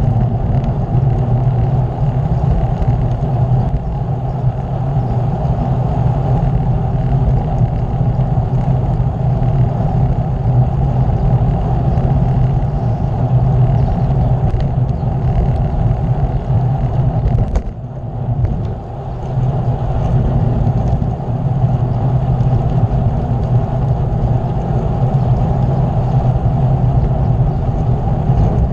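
Steady wind rush over a camera microphone carried on a moving bicycle, deep and unbroken, with a brief lull about eighteen seconds in.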